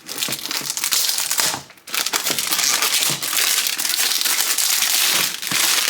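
Plastic packaging crinkling loudly as it is unwrapped by hand, in two long spells with a brief break just before two seconds in.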